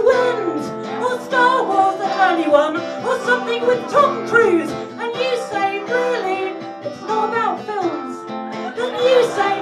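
A live song: a singer at the microphone over acoustic guitar accompaniment.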